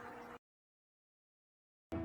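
Near silence: a faint room-tone tail for under half a second, then a dead-silent gap, and background music starting just before the end.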